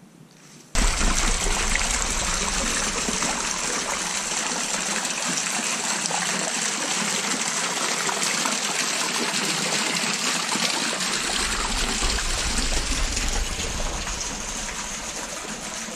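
A creek running high, its water rushing steadily and loudly. A low rumble shows at the start and comes back from about eleven seconds in.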